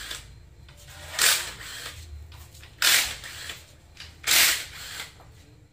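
Hand-held power tool run in three short bursts, about a second and a half apart.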